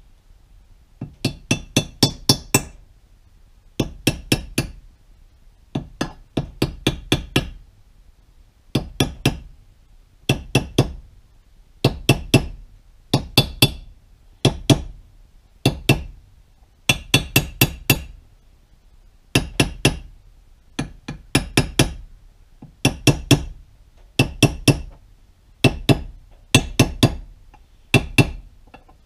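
A hammer tapping a punch in quick clusters of light metallic strikes, about one cluster a second with short pauses. The taps are driving the clutch-release oil seal down into its bore in the cast-metal clutch cover until it is fully seated.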